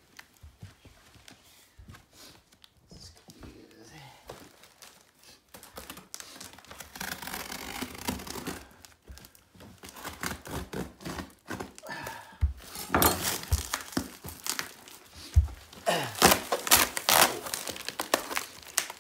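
Shipping wrap around a front bumper being torn and crumpled by hand, faint and scattered at first, then louder crinkling with sharp tearing bursts in the second half.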